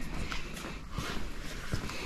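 A few faint footsteps on a hard floor, as light irregular ticks over a low background murmur.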